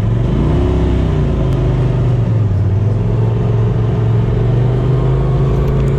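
Polaris side-by-side UTV engine running under way, heard from inside the cab: the revs rise and fall once about half a second in, then hold steady.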